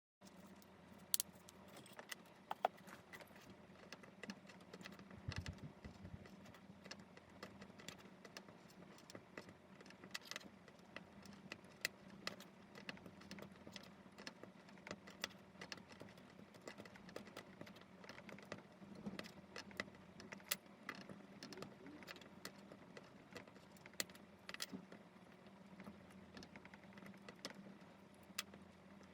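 Faint, irregular light clicks and clacks of plastic keycaps being handled and set down, over a steady low hum.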